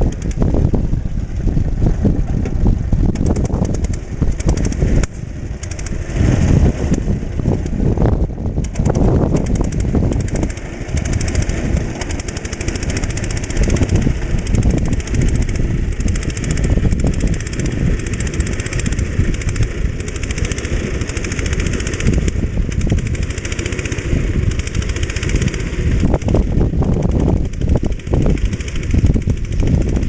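Trusty garden tractor's 5.5 hp JAP single-cylinder engine running under load while pulling a plough.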